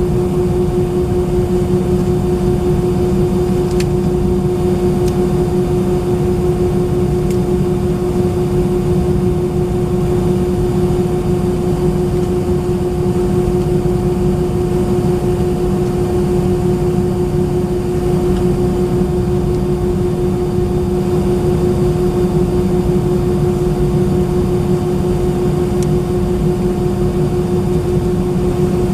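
Steady cabin drone of an Airbus A319's IAE V2500 turbofan engines and airflow, heard from inside the passenger cabin, with a constant mid-pitched hum over a broad rush that stays even throughout.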